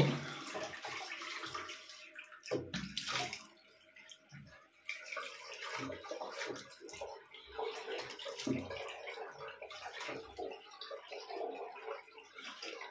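Water splashing as hands cup it from a sink onto the face, rinsing it between shaving passes. The splashes come unevenly, with a short lull about four seconds in.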